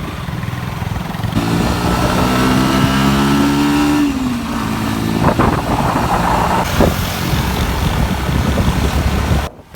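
Motorbike engine running on the move under a steady low rumble, its note climbing from about a second and a half in and dropping about four seconds in, with a couple of sharp clicks later; the sound cuts off suddenly near the end.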